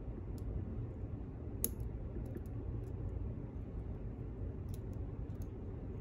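Light, scattered clicks of a lock pick working the wafers of a slider cam lock under light tension, one sharper click about a second and a half in. A steady low hum runs underneath.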